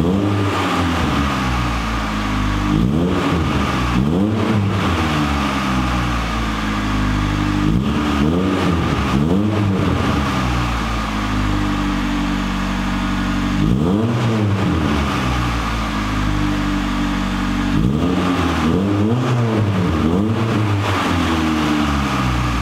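Honda Civic VTi's four-cylinder VTEC engine running through a Power Rohr aftermarket exhaust and mid pipe. It idles steadily and is blipped in short revs again and again, each rising and falling quickly, often two or three in a row.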